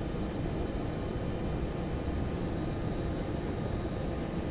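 Steady low rumble in the cockpit of a Boeing 747-400 with its four engines at idle, a faint steady high whine above it.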